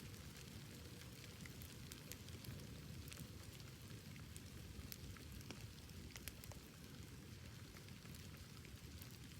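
Faint bonfire of burning wood crackling, with scattered sharp pops and ticks over a steady low rumble of flame.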